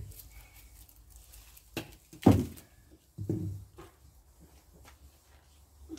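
Handling noise from a cut apple branch laden with fruit: a sharp click, then a loud thump, then a softer thump about a second later.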